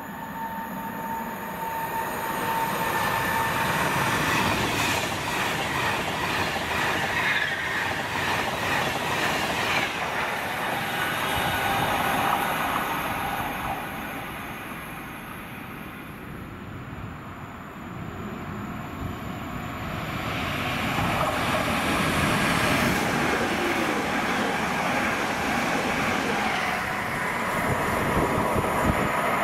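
A train passing on the line. Its running noise swells from about two seconds in, eases off around the middle, then builds again toward the end.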